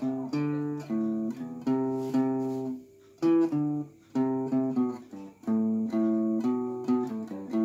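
A hollow-body guitar played unaccompanied, picking a short phrase of single notes and chords that change every fraction of a second, with brief breaks about three and four seconds in.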